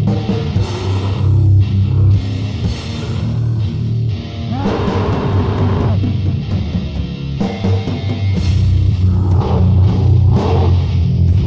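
Extreme metal track from a 1994 demo tape: guitar and drums over a heavy, dense low end, with cymbal crashes about every second early on and a louder guitar passage about five seconds in.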